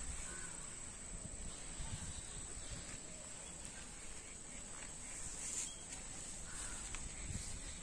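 Steady high-pitched drone of field insects, with a low rumble underneath.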